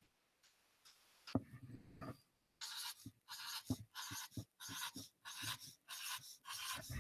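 Pen drawing on a board: a few soft knocks about a second in, then a quick run of short strokes, about two or three a second.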